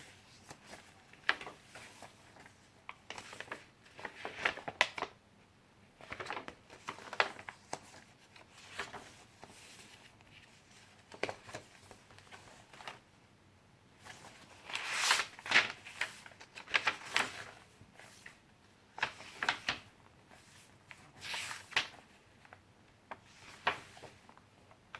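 Pages of a handmade junk journal being turned and handled: irregular paper rustles and flaps, with short pauses between.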